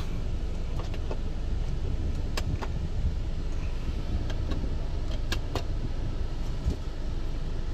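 A scattering of short plastic clicks from the overhead map-light switches being pressed, over a steady low rumble inside the car.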